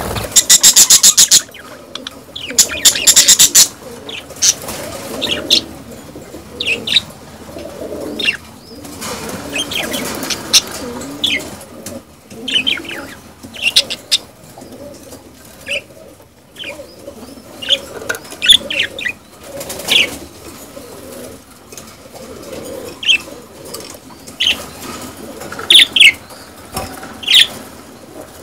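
A flock of budgerigars chattering and chirping in many short, high calls: the courtship and mating chatter of breeding budgies. Two rapid trains of clicks come in the first few seconds.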